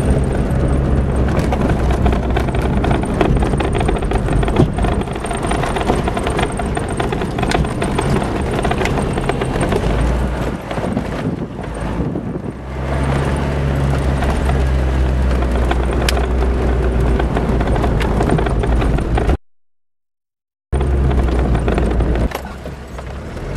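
Land Rover Discovery driving on a dusty dirt and gravel track: steady engine drone with tyres crunching over stones and frequent knocks and rattles from the rough ground. The sound cuts out for about a second near the end.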